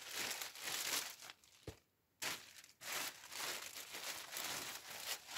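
Thin plastic carrier bag rustling and crinkling as eggplants are pulled out of it by hand, in irregular spells with a short pause about two seconds in.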